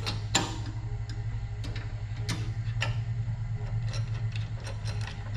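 Hand ratchet wrench clicking in short, uneven runs as the nut on a mower's deck-lift assist spring eye bolt is turned, over a steady low hum.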